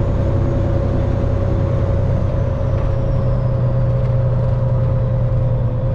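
Peterbilt semi truck's diesel engine running steadily while cruising, heard from inside the cab as a steady low drone with a faint high whine that slowly falls in pitch.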